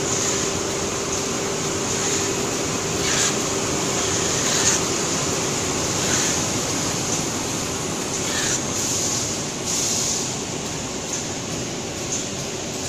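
Single-roll toilet paper packaging machine running steadily, with several short hisses a second or two apart and a faint hum that stops about five seconds in.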